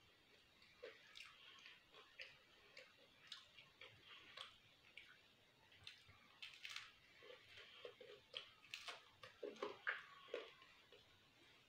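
Close-miked chewing of pizza: faint, irregular wet mouth clicks and squishes, with another bite taken about six seconds in.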